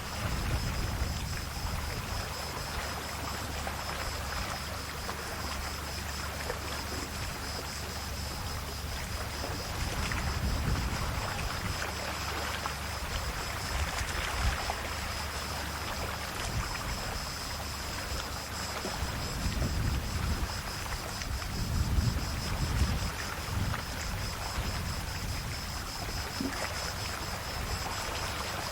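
Calm sea waves lapping and washing on the shore: a steady wash with a few gentle surges, the strongest about ten, fourteen and twenty-two seconds in.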